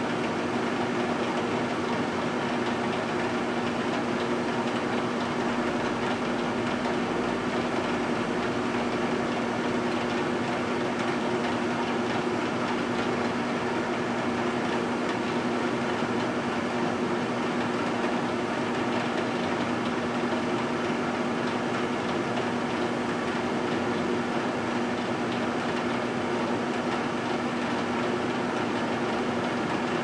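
Microwave oven running: a steady electrical hum with two low held tones over the even whir of its fan.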